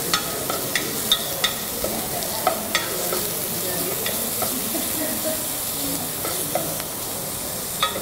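Chopped onion sizzling in oil in a metal saucepan as it is browned and softened, stirred with a wooden spoon that scrapes and taps against the pan. The taps come often in the first three seconds, then thin out.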